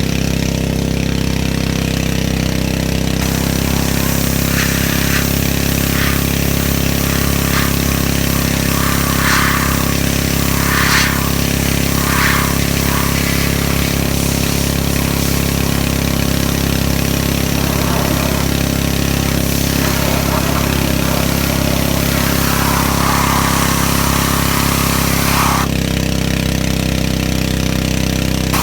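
Gas pressure washer running steadily, its engine a constant hum under the hiss of the spray. The hiss grows stronger about three seconds in and drops away near the end.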